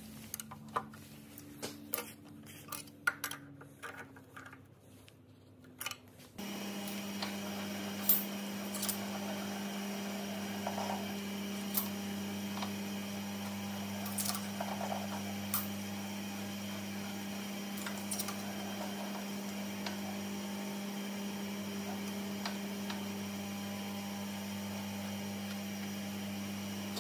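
Electric motor of a Wadkin EQZ high-speed spindle moulder running with a steady hum that comes in suddenly about six seconds in. A few sharp clicks and knocks sound over it. Before it starts there are only scattered clicks over a faint hum that sinks slightly in pitch.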